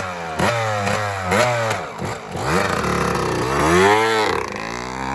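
Yamaha YZ125 dirt bike's two-stroke single-cylinder engine being revved, its pitch rising and falling several times.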